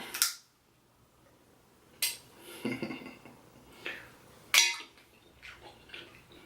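Sharp clinks and clicks of tableware being handled while eating a seafood meal, about five distinct clicks after a quiet first two seconds, the loudest a little past the middle, with softer handling sounds near the end.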